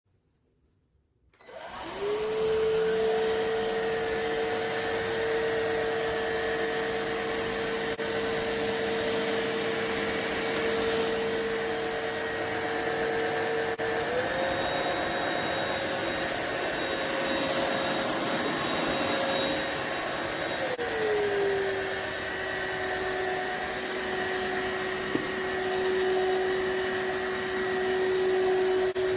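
Cordless stick vacuum (iwoly C150) switching on after a moment of silence, its motor whine quickly spinning up to a steady pitch over a rush of airflow. The motor pitch steps up about 14 s in, then drops to a lower, steady pitch about 20 s in.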